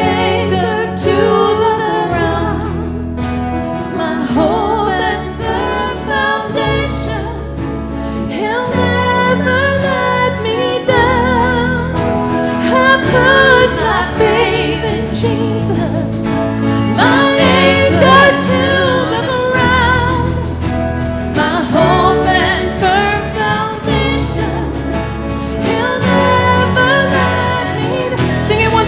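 Live worship band playing a slow song, with sung vocals over sustained bass and keyboard notes.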